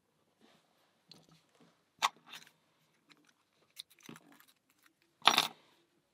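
Small metal clicks and rattles from handling an opened pin-tumbler challenge lock and its parts, with a louder clatter about five seconds in.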